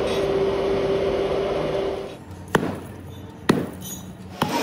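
Steady machine hum for about two seconds, then it drops away and three sharp knocks follow, about a second apart.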